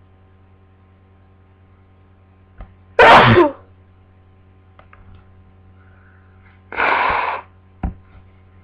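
A person with a cold sneezes once, loudly, into a tissue about three seconds in. A shorter, quieter breathy noise follows about seven seconds in, over a steady low hum.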